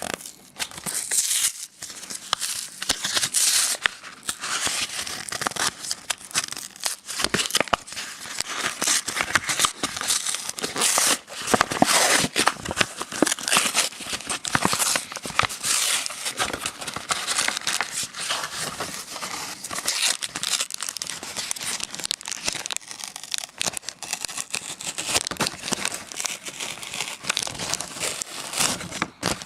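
Pokémon card blister pack being torn open by hand: plastic and card packaging crinkling and ripping in a dense, continuous crackle.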